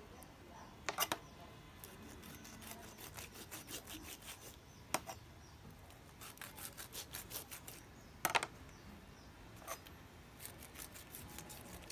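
Knife cutting and skin being pulled on a pufferfish on a plastic cutting board: quick runs of small crisp clicks and scraping, with a few louder single clicks.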